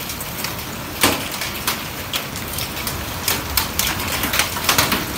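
Heavy rain with hail: a steady rush of rain broken by irregular sharp clicks and knocks of hailstones striking, with one hard knock about a second in and the strikes coming thick and fast in the second half.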